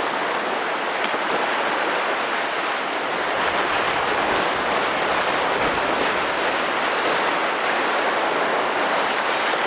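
Ocean surf breaking and washing onto a sandy beach, a steady rush of water.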